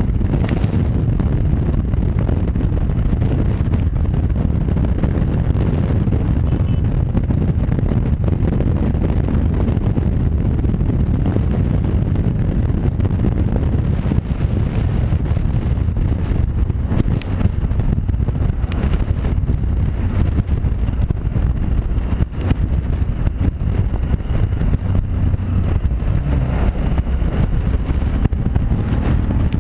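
Steady low wind rush and road noise from a Honda Varadero V-twin motorcycle riding at speed, with wind buffeting the microphone and the bike's engine beneath it. An oncoming lorry rushes past just after the start.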